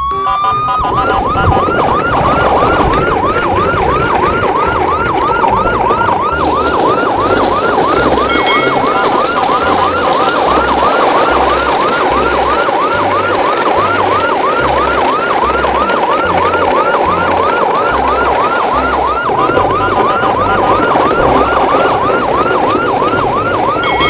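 Electronic siren sounding a fast yelp: a rising whoop repeated quickly and evenly, about three times a second, without a break.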